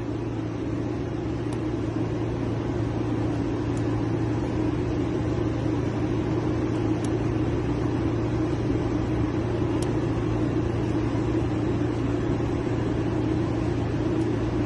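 A vehicle engine idling steadily, with a few faint light ticks as a car door lock is being picked.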